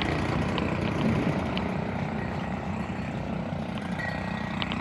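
Small two-stroke engine of a gas-powered pole saw running steadily at idle, with no revving or cutting.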